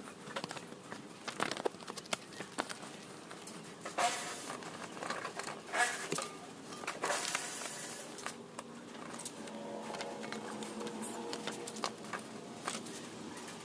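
A sheet of paper rustling and crinkling in a few short bursts as it is handled and pressed up against a truck's underbody, with scattered light clicks and knocks.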